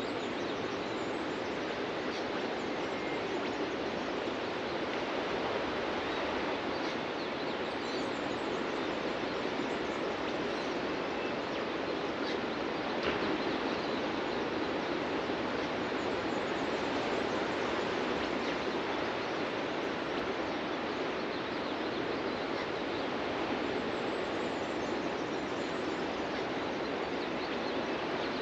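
Ocean surf breaking on a beach, heard as a steady, even rush of waves. Faint bird calls come through now and then.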